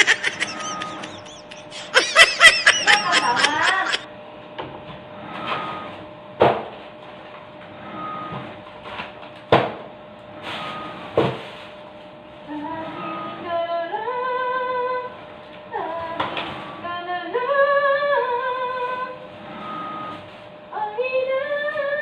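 A loud laughing voice in the first few seconds, then a few sharp knocks, then a woman singing a slow melody in long held notes from about halfway through.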